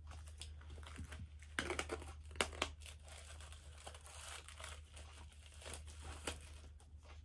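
CD packaging being handled, crinkling and rustling with a run of small clicks and taps. The noise is busiest in the middle, with the sharpest crackles about two seconds in.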